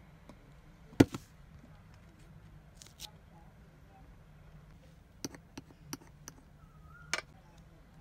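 Sharp clicks and light taps from tweezers, a clear acrylic card and a sticker sheet being handled in close-up. A single crisp click about a second in is the loudest. A cluster of lighter taps comes around five to six seconds in, and a double click near seven seconds.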